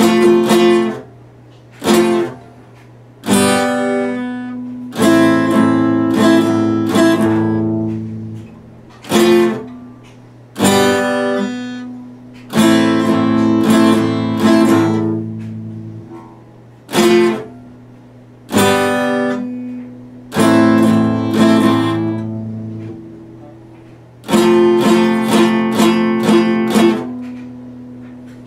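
Epiphone steel-string acoustic guitar strummed: chords struck one at a time and left to ring and die away, with short breaks between them and a quick run of strokes near the end.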